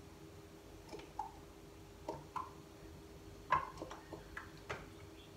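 Olive oil pouring from the neck of a glass bottle into a glass, with faint, irregular glugs and clicks, several of them short tones rising in pitch as air bubbles back into the bottle.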